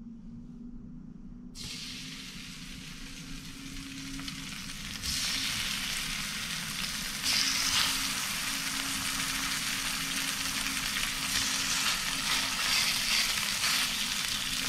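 Fish fillets laid into hot oil in a stainless steel frying pan, sizzling. The sizzle starts suddenly a second and a half in and grows louder in steps as more fillets go into the pan.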